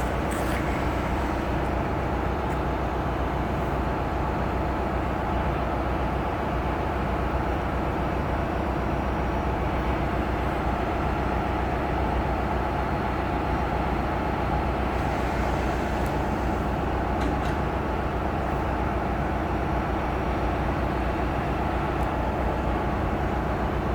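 Amtrak train's diesel locomotive running steadily at idle, a constant low engine rumble with no change in level, while the train stands at the station stop.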